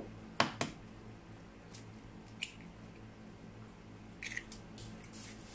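Kitchen handling sounds as beaten egg is added to a bowl of meat and spring onions: two sharp knocks of the container and utensils about half a second in, then faint scattered clicks, a few more near the end.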